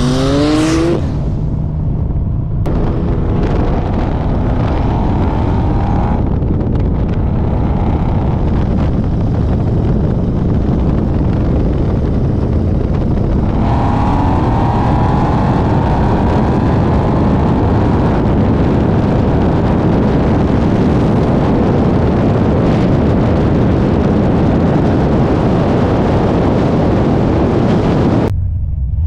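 A tuned car engine at full throttle, climbing in pitch through the gears with brief dips at each shift, under heavy wind and road roar. The throttle closes abruptly near the end, and the revs then begin to rise again.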